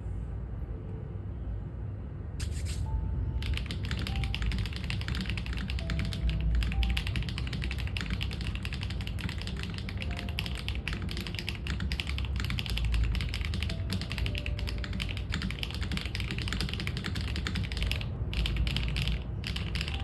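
Fast, continuous typing on a custom mechanical keyboard with HMX SC switches in an aluminium plate and no foam: dense clacking that starts about a few seconds in after a short quieter stretch and pauses briefly near the end. Soft background music plays underneath.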